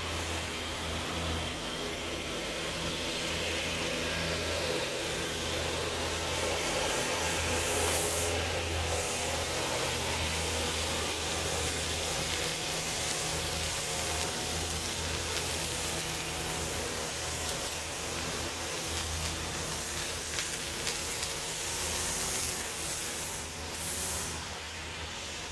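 Steady outdoor background noise: a continuous hiss over a low rumble that comes and goes.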